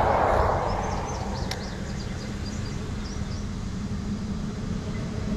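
Road traffic passing close by: a vehicle's tyre rush swells at the start and fades about a second in, then a steady low engine hum builds toward the end. Faint bird chirps come in briefly about a second in.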